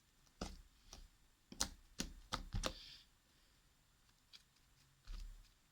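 Soft, sticky homemade slime being worked by hand, giving a quick series of sharp clicks and snaps, about six in the first three seconds, then a dull thump near the end.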